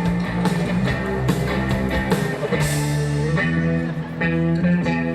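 Live rock band playing an instrumental passage between sung lines: guitar leading over bass and a steady drum beat.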